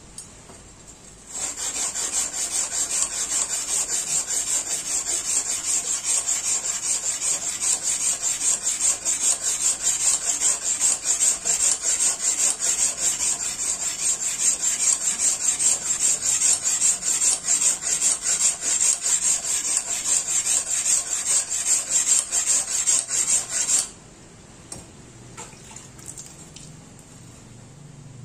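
Steel knife blade scraped back and forth on a wet sharpening stone in quick, even strokes, shaping the tanto's yokote and kissaki (tip). The gritty scraping starts about a second in and stops suddenly a few seconds before the end.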